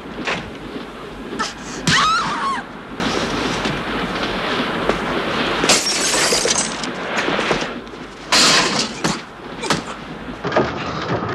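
Film fight sound effects in a train compartment: a rapid run of crashes, thuds and things breaking, with glass shattering. The biggest smash comes a little past eight seconds in.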